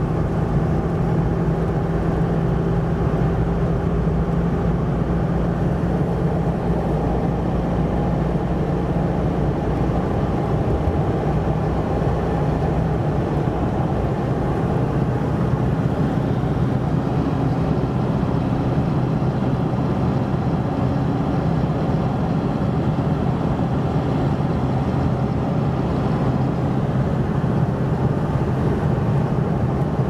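Steady engine and tyre noise of a moving car, heard from inside the cabin.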